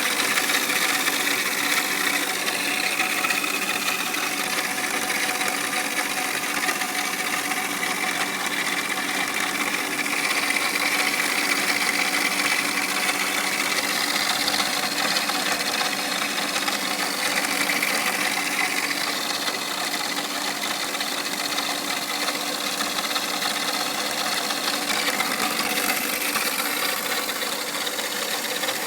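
1996 Mercedes-Benz C280's straight-six engine running steadily with a mechanical rattle, the unexplained noise the owner is trying to track down as a fault.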